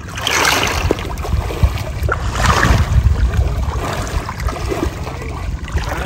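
Water splashing and sloshing as people wade and swim through a shallow flowing river, with a surge of splashing at the start and another about two and a half seconds in, over a steady low rumble.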